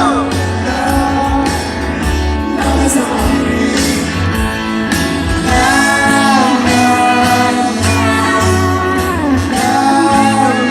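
A rock band playing live in concert, with a lead vocal singing over electric guitars, bass and drums.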